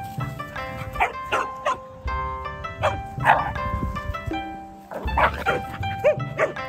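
A Shiba Inu barking at a Siberian husky in play, about eight short sharp barks in clusters, over background music.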